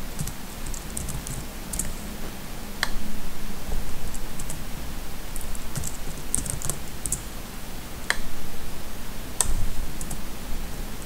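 Computer keyboard being typed on in short runs of key presses, with two sharper single clicks about three and eight seconds in.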